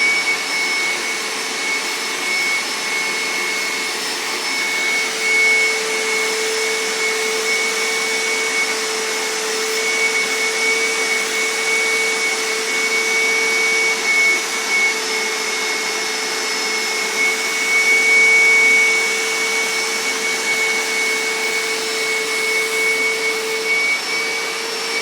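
Hoover Dual V steam cleaner running: a steady motor whine over suction hiss, holding two constant tones, with small swells in level.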